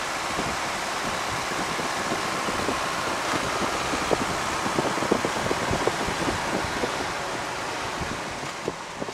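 Cabin noise of a Piper J-3 Cub's Continental A-65 four-cylinder air-cooled engine running under steady rushing airflow, with wind buffeting the microphone in low thumps. It is running with the carb heat on for the landing approach, and the noise eases a little near the end.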